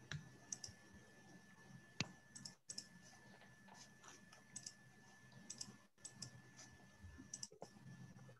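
Near silence with faint scattered clicks of someone working a computer, several coming in quick pairs and triples, one sharper click about two seconds in. A faint steady high tone and low hum sit under them.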